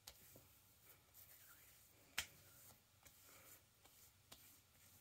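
Hands patting and rubbing aftershave splash into the face: faint skin-rubbing with a few sharp slaps or smacks, the loudest about two seconds in.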